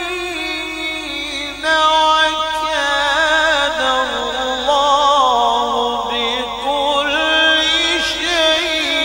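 A male qari reciting the Quran in melodic tajweed style, holding long ornamented notes with a wavering pitch. A new, louder phrase begins about two seconds in.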